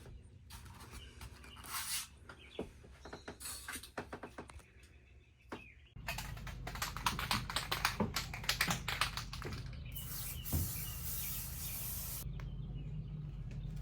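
Irregular clicks and taps from hands handling insulation and panels on a van wall, with a few short hisses. About halfway through the sound changes to a steady low hum, and birds chirp faintly near the end.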